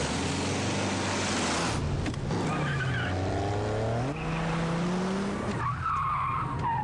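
Car engine accelerating, its pitch rising twice in the middle, over a steady rush of road noise, then a wavering tyre squeal near the end.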